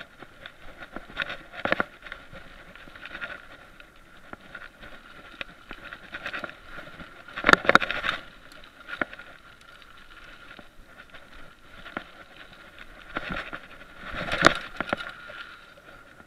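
Mountain bike rolling fast over a dirt trail, picked up by a chest-mounted action camera: a constant rattle of tyres and bike parts over the ground, with louder clattering jolts about halfway through and again near the end.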